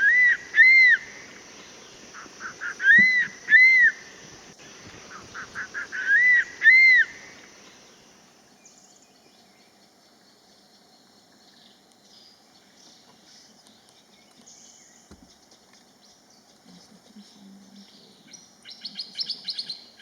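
Crested serpent eagle calling three times, about three seconds apart. Each call is a run of short, quickening notes that leads into two loud whistled notes rising and falling in pitch. Much fainter, near the end, another bird gives a quick series of high notes.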